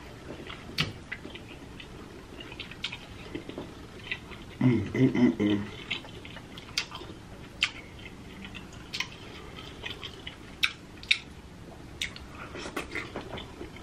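Close-up mouth sounds of someone eating sauced seafood from a seafood boil: chewing with wet lip smacks and scattered clicks. There is a short vocal sound about five seconds in.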